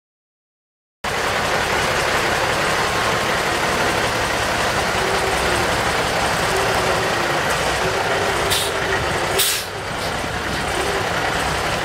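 1977 Ford F900 tow truck's Cummins NTC-290 six-cylinder diesel engine running as the truck moves, starting suddenly about a second in. Two short hisses about two-thirds of the way through, typical of the truck's air brakes.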